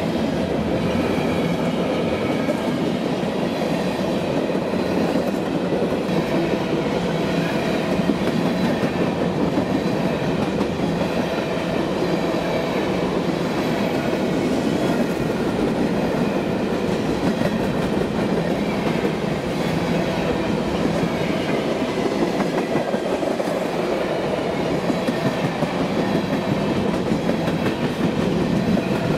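A BNSF freight train's cars rolling past, a steady, unbroken wheel-on-rail noise.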